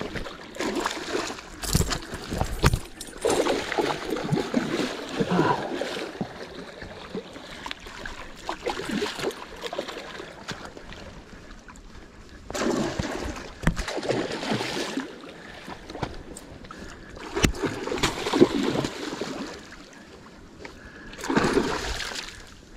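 Water splashing and sloshing in several separate bursts as a hooked musky is brought in and handled in the shallows at the bank's edge, with a couple of low knocks about two seconds in.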